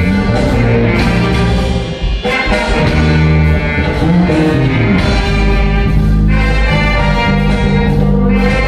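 A live big band of saxophones, trumpets and trombones with drums playing loud, sustained ensemble chords.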